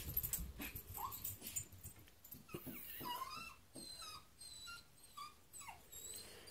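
Cairn terrier whimpering: a run of faint, short, high whines, the excited whining of a dog that thinks it is being taken out.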